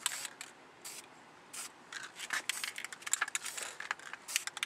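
Aerosol spray-paint can hissing in many short bursts as letters are sprayed onto a car door, the sprays coming thicker and faster in the second half.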